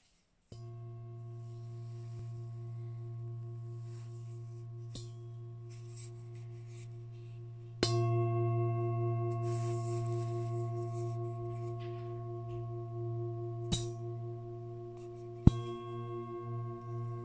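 Large engraved metal singing bowl struck about half a second in and struck again, harder, near eight seconds, ringing on with a strong deep hum and several higher overtones that pulse slowly. A couple of sharp taps sound late on while it keeps ringing.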